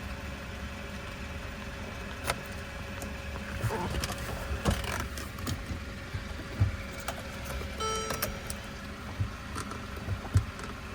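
Scattered clicks and light taps, with one short electronic beep about eight seconds in.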